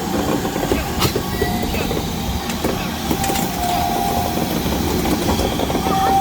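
Heritage railway train moving slowly through the station: a steady rumble with a sharp click about a second in and a thin, high held tone that comes and goes, longest near the end.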